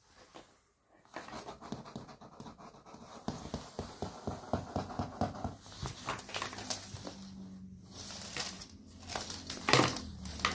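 A cat scrabbling and shifting about in a cardboard box while playing with a ribbon: cardboard and ribbon rustling and scraping in quick irregular bursts, with a sharper knock near the end.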